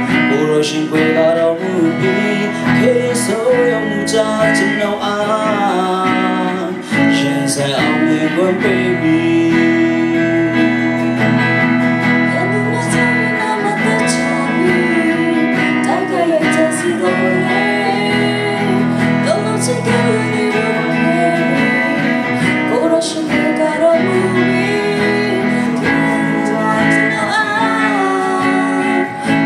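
Music: a man and a woman singing a gospel worship song into microphones over instrumental accompaniment.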